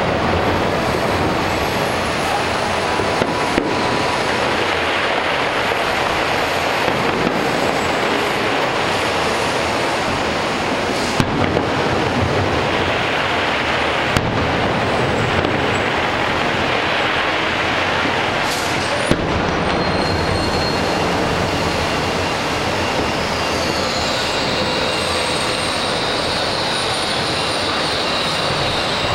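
Distant fireworks barrage: a steady, dense wash of overlapping booms and crackling, with a few sharper single bangs standing out.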